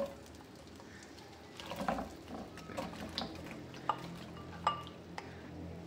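Whole dates tipped from a bowl into a non-stick frying pan of warm ghee, landing in a scatter of soft knocks and light clicks against the pan and bowl.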